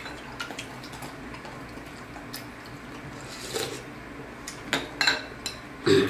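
Eating pho: ceramic soup spoons clinking against porcelain bowls while broth is sipped and slurped. The clinks are sparse at first and cluster in the second half, with one louder knock just before the end.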